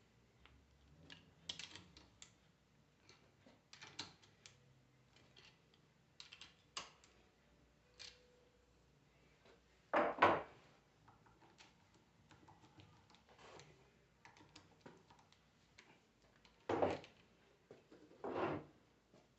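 Scattered light clicks and taps of hand tools and small metal parts while screws on a 24-volt truck alternator are re-tightened, with a few louder clunks about halfway through and twice near the end.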